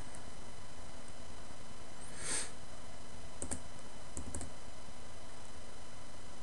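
A few sharp computer mouse clicks: a double click about three and a half seconds in, then a single and a double click just after. A short breathy hiss comes about two seconds in, and a steady low hiss runs underneath.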